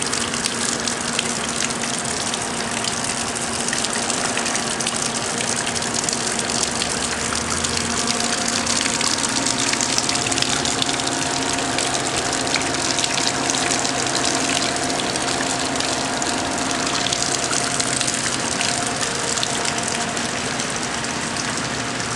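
Heavy rain pouring down with water gushing and splashing steadily onto waterlogged ground.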